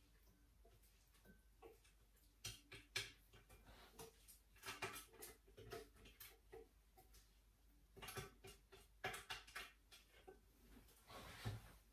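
Faint, irregular light knocks and scrapes as chopped onion is emptied out of a Thermomix stainless-steel mixing bowl into a small glass dish.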